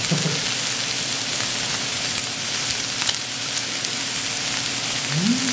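Beef sizzling on a hot ridged grill plate: a steady frying hiss with scattered small pops. A short voice sound comes just at the start and a brief rising one near the end.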